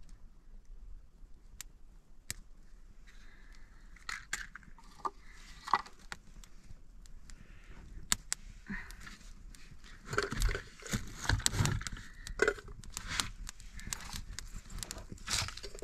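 Dry leaves and twigs crunching and crackling as a small open fire is kindled, with irregular snaps and handling noise. Louder rustling and knocks come about ten seconds in.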